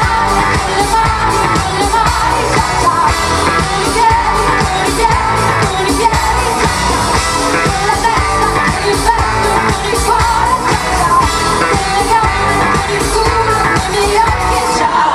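Live pop band playing with a singing voice: a steady drum beat under electric guitars and keyboards.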